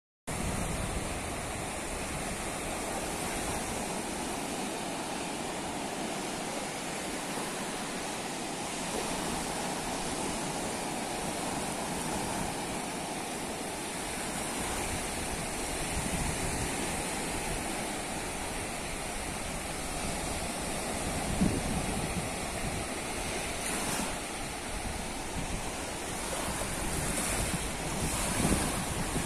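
Small waves of a calm sea washing onto a sandy beach, a steady wash of surf, with wind rumbling on the microphone. The surf grows a little louder near the end as a wave runs up the sand in foam.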